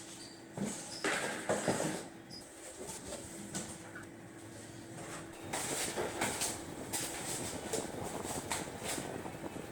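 Handling noises as the packaging is opened: scraping, rustling and a few sharp knocks, busier in the second half, over a faint steady hum.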